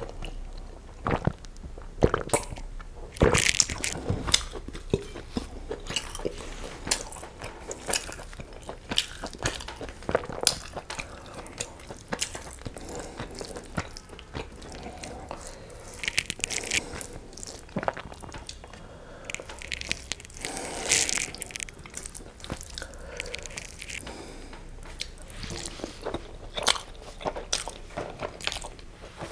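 Close-miked chewing and wet mouth sounds of a man eating egg biryani and chicken curry, with irregular smacks and clicks, and fingers squishing rice and curry on a steel plate.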